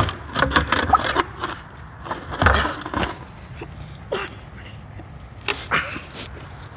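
Close handling noise: clothing and the camera rubbing and scraping as a person squeezes through a gap, with irregular cracks, knocks and scrapes. A few short vocal sounds from the person's effort are mixed in.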